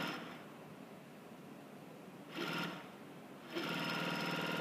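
S-310 double-face cashmere invisible-stitch sewing machine stitching in short runs: one run fades out just at the start, a brief burst comes about two and a half seconds in, and a longer run begins near the end. A faint steady hum lies between the runs.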